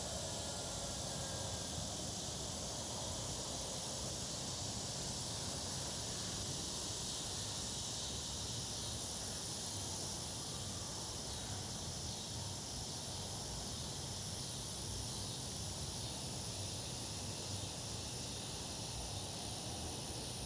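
A steady chorus of summer insects: a continuous high, even trill that holds without a break, over a faint low rumble.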